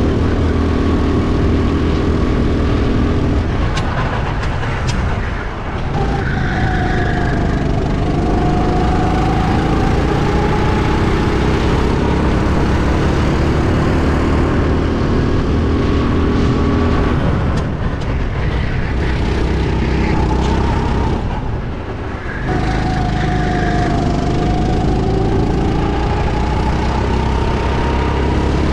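Racing go-kart engine heard from onboard at full speed, its pitch climbing steadily for several seconds at a time and falling away briefly twice, about five seconds in and again after about twenty-two seconds, before climbing again.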